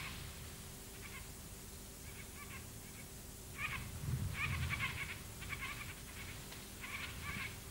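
Birds calling: short nasal calls repeated in clusters, busiest and loudest about four to five seconds in.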